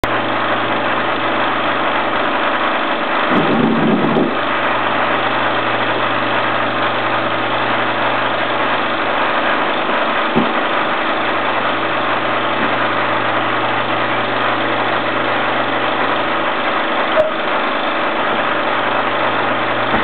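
16mm film projector running through blank leader: a steady mechanical hum and hiss with low hum tones. There is a brief louder swell about three seconds in and a couple of faint clicks later.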